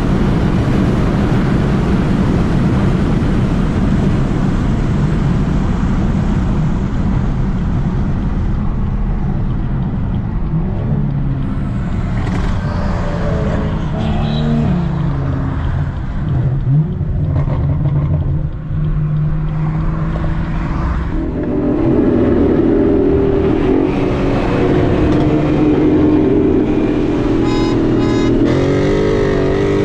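Car engine running with heavy rushing road and wind noise, settling to a steadier engine note and then rising in pitch as it accelerates near the end.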